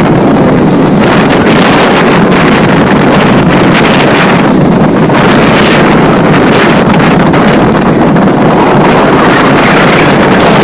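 Strong wind buffeting the microphone over the steady running of a motorized outrigger boat (bangka) pushing through rough open sea, with waves and spray against the hull.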